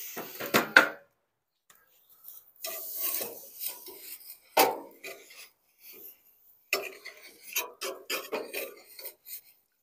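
Metal pizza peel scraping and clanking against the baking surface and steel mouth of a pellet pizza oven as it is slid under the pizza to turn it. There are sharp knocks about a second in and again near the middle, and a run of light scrapes and clicks near the end.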